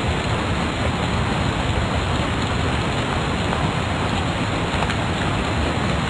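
Steady, even hiss of a lecture-room recording's background noise, with no distinct events and no speech.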